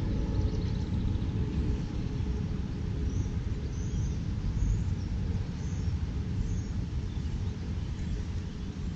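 Uneven low rumble of wind buffeting the microphone, with a few faint high chirps in the middle.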